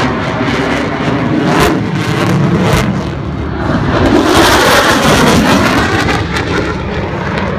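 F-22 Raptor's twin Pratt & Whitney F119 turbofan engines roaring as the jet flies past, swelling to their loudest a little past the middle and then easing off.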